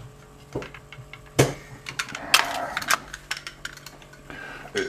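Staple gun and pieces of wood being handled and set in place: a sharp knock about a second and a half in, then a run of lighter clicks and knocks.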